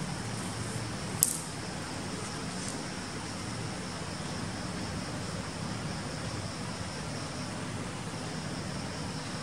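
Steady background hiss and low hum, with one sharp tap about a second in and a fainter tick a little later.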